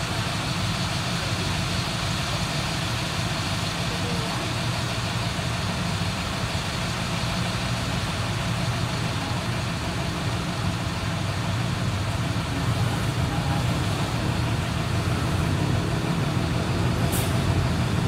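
MAN D0834 four-cylinder inline diesel engine of a Volkswagen 17-230 OD bus running steadily, growing a little louder in the last few seconds. A short hiss comes near the end.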